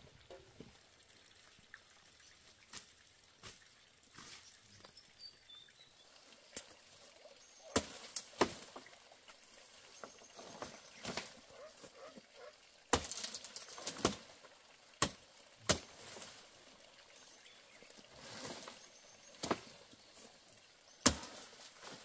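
Bamboo being cut and stripped with a blade: irregular sharp chops and cracks of the stalk and its branches, with leaves rustling between them. The loudest crack comes near the end.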